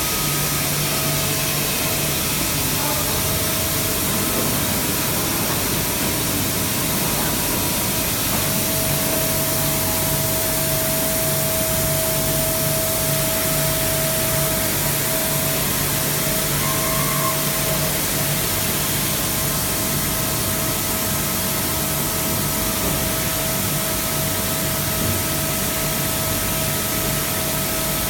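Mazak five-axis CNC machining center running: a steady hiss with a low hum and a thin, higher steady whine.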